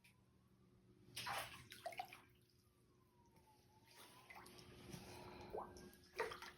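Knee-deep floodwater sloshing and splashing as someone wades through it, with a burst about a second in, softer splashing after four seconds and a sharp splash near the end. A faint tone slowly falls and rises in pitch behind it.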